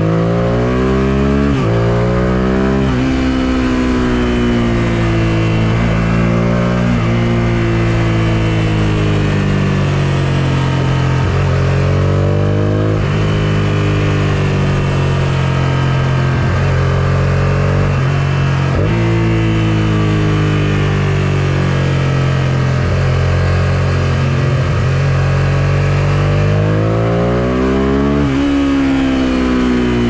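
A 1999 Suzuki SV650S's V-twin engine on an Akrapovic full exhaust system, under way. The revs climb near the start, sink slowly for several seconds off the throttle, pick up again, and climb hard near the end.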